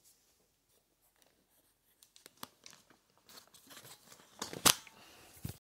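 Handling noise close to the camera: a person moving about and touching it, making scattered clicks and knocks after a couple of quiet seconds, with one louder knock near the end.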